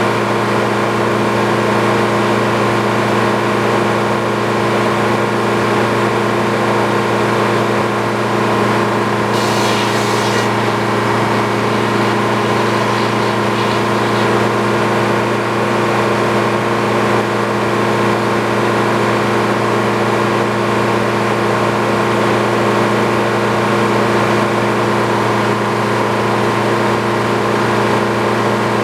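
Sawmill engine running steadily at a constant speed, with a brief hiss about ten seconds in.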